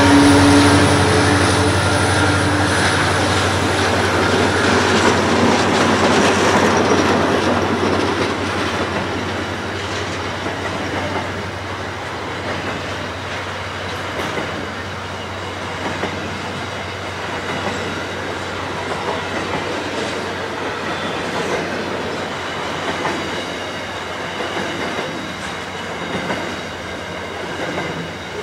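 Freight train wagons rolling past close by: steady rumble of wheels on rail with clattering clicks, louder in the first few seconds and then even.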